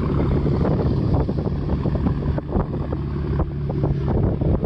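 Wind buffeting the microphone on the open flybridge of a boat under tow, with a steady low hum underneath.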